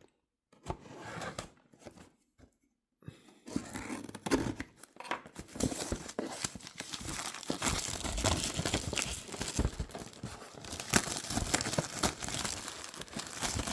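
Plastic shrink-wrap on a kit box being cut open, then torn off and crumpled. The first few seconds hold only a few faint scrapes; from about three and a half seconds in, thin plastic crinkles and tears continuously.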